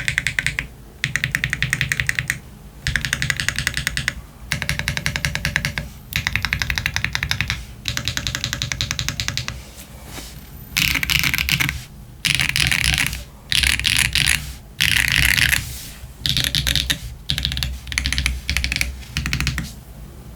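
Typing on a Jris 65 mechanical keyboard with stock Gateron Type R tactile switches and GMK keycaps: fast runs of keystrokes lasting a second or two each, with short pauses between them.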